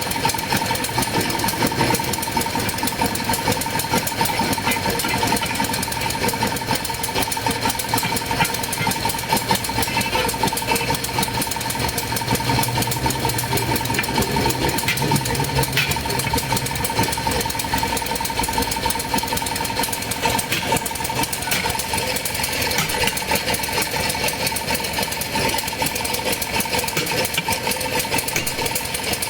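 A machine running steadily with a fast, even rattle and a steady high whine.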